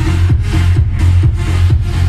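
Electronic dance music played loud through a home audio system with car-audio subwoofers. The bass is heavy, with a steady beat about twice a second.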